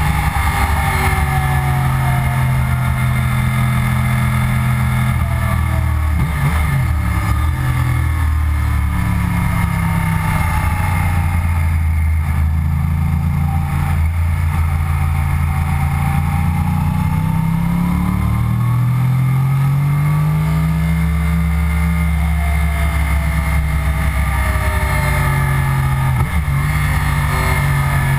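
2009 Yamaha YZF-R1 crossplane inline-four engine heard from onboard at track speed. The engine note falls over the first few seconds as the bike slows for a corner and stays low through the middle, then climbs steadily as it accelerates out, with a quick gear change near the end.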